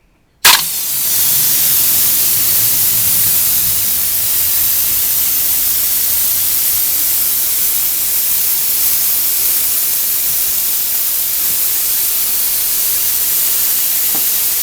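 Compressed air hissing steadily out of an air compressor's nozzle into a balloon, starting abruptly about half a second in. It is fed from the tank alone, with the compressor unplugged, and the tank is running low.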